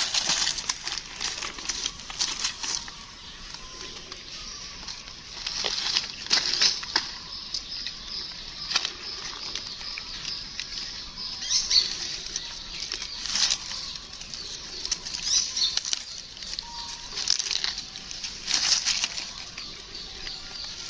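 Rustling and scuffling with frequent light clicks and knocks, as small animals scrabble about in loose mess.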